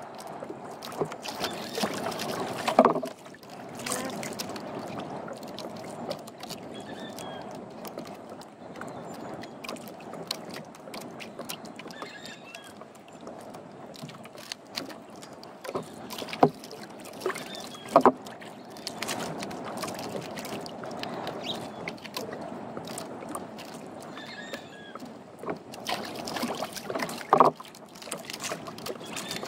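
Water lapping and sloshing against a small outrigger boat's hull, with a few sharp knocks, the loudest about three seconds in, around the middle and near the end.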